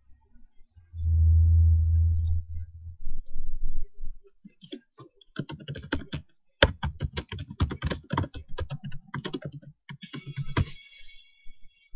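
A low rumble lasting about two seconds near the start. Then rapid typing on a computer keyboard, many quick key clicks, for about six seconds.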